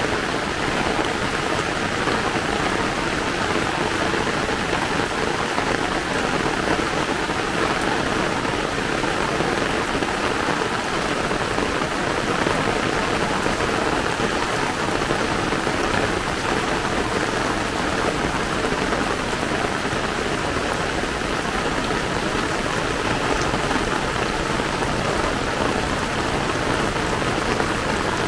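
Heavy rain falling steadily, pattering on an umbrella overhead and on the wet ground, with no let-up.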